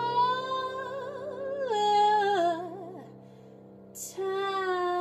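Woman singing long held notes with vibrato over a steady sustained accompaniment; the voice steps down in pitch over about three seconds, drops away briefly, then takes up a new held note.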